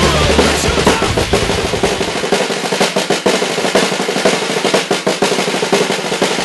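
Drum kit played in the studio: rapid, even snare strokes like a roll, with cymbal wash over them.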